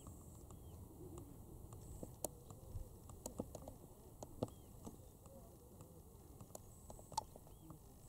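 Faint short bird calls from a wheeling flock, a few brief chirps, over a low background rumble, with scattered sharp clicks.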